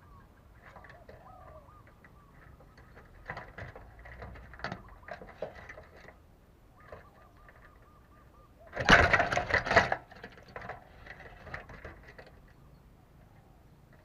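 Faint bird chirps with scattered light rustles, and a loud rustling burst lasting about a second, about nine seconds in.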